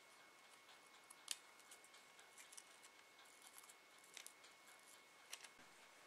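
Near silence, broken by faint scattered clicks and crinkles of fingers handling and shaping stiff, coated tissue-paper petals, with sharper ticks about a second in, at four seconds and near five and a half seconds.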